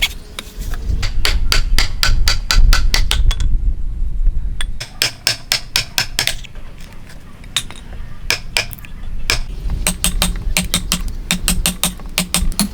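Hammer blows in runs of rapid, evenly spaced strikes, about five a second, with short pauses between the runs.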